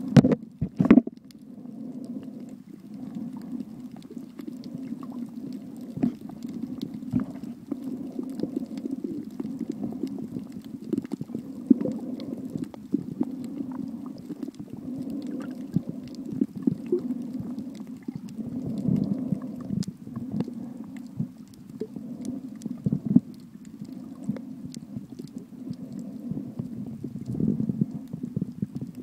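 Muffled underwater sound picked up by a camera in a waterproof housing: a steady low rumble of moving water against the housing, with scattered faint clicks and a couple of sharp knocks about a second in.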